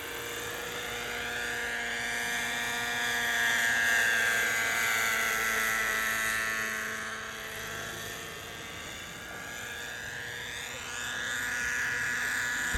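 Thunder Tiger Raptor 50 radio-controlled helicopter's nitro glow engine and rotors running in flight, a steady whine. The sound grows louder about four seconds in, fades around nine seconds, and grows louder again near the end as the helicopter comes in low.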